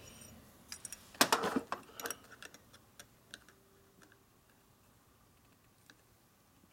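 Light metallic clicks and clinks of a screwdriver and small carburetor float parts handled on a steel workbench, with a cluster of louder knocks about a second in. Then only faint, sparse ticks as a small screw is turned.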